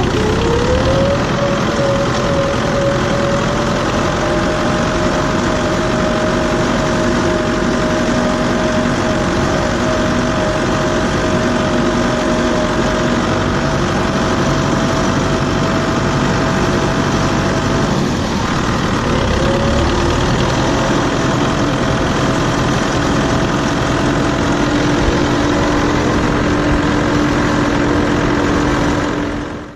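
Farm tractor engine running close up: it revs up in the first second, holds at a steady speed, dips briefly about two-thirds of the way through and picks up again, then cuts off abruptly at the end.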